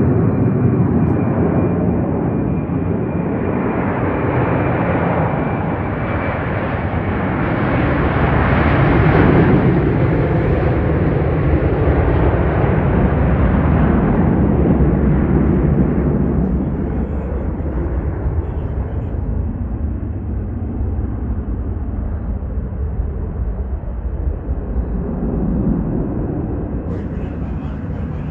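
Boeing 737-900ER's twin CFM56-7B turbofan engines at takeoff thrust: a loud rumble with a hiss on top that builds to its loudest about nine seconds in, then slowly fades as the jet climbs away.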